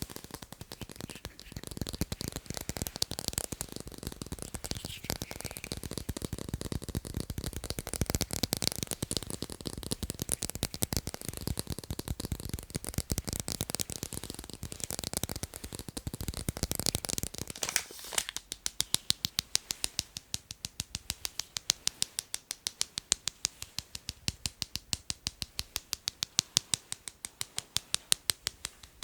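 ASMR tapping on hard objects: a fast, dense, crackly flurry of taps and scratches, then about two-thirds of the way through it changes to a steady, evenly spaced rhythm of crisp single taps, a few per second.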